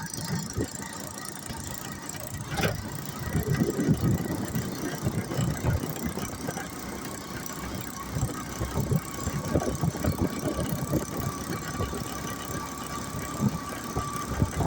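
Rickshaw riding along a road, heard from the passenger seat: the engine runs under a rumble of uneven knocks and rattles, with a thin steady whine that grows clearer in the second half and a sharp click about two and a half seconds in.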